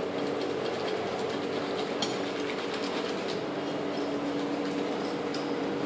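Wire whisk beating thick dosa batter in a large bowl, a steady fast rattle and scrape, with a low steady hum behind it.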